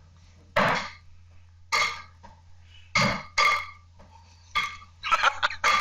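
A young child's voice in short repeated bursts, about one a second, coming quicker and closer together near the end, over a low steady hum.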